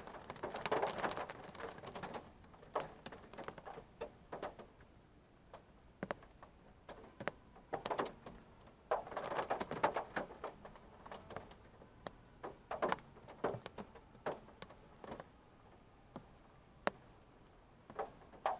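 Rain drops and drips landing on a parked car, heard from inside the cabin: irregular taps and single sharp ticks, with bursts of quick patter near the start and about nine seconds in.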